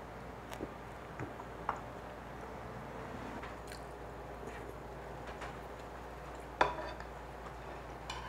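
Quiet eating at a table: small mouth sounds and soft clicks of chopsticks on dishes, with one louder, ringing clink of ceramic dishware about two-thirds of the way through.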